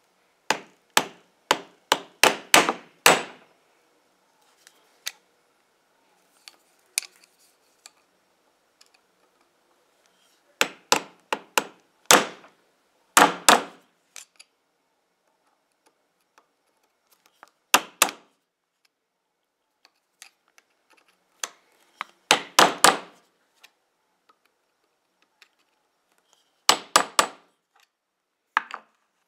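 Hammer striking a steel punch held on the softened (untempered) jaw tip of a pair of pliers on a steel block, metal on metal, to dent a cavity into the jaw. The blows come in bursts: about seven quick strikes at the start, then short groups of two to four strikes with pauses between.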